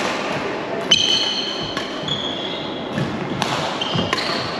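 Badminton rally: rackets striking the shuttlecock with sharp cracks, several in a row, and court shoes squeaking briefly on the wooden floor between them, echoing in a large sports hall.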